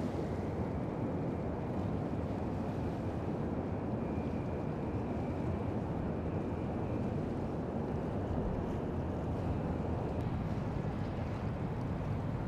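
Steady low rumble of wind on the microphone over river water and boat engines from the barge and passing ferries, with no clear single event.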